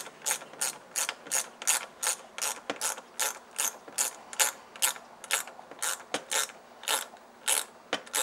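Ratchet wrench clicking in quick, regular strokes, about three a second and spacing out slightly near the end, as it tightens the positive terminal clamp nut on a car's 12V battery.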